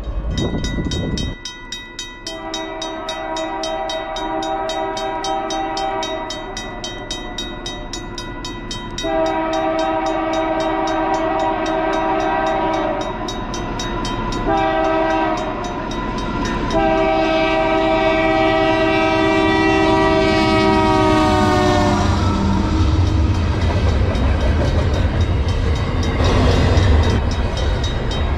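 Freight locomotive's multi-chime air horn sounding the grade-crossing signal: two long blasts, a short one and a final long one that sags slightly in pitch as it passes. After the horn stops, the rumble of the locomotives and double-stack intermodal cars rolling by grows louder.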